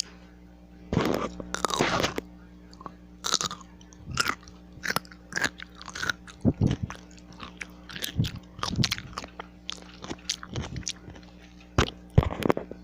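Biting into a pickle with a loud crunch about a second in, then chewing it in a run of short, sharp, wet crunches.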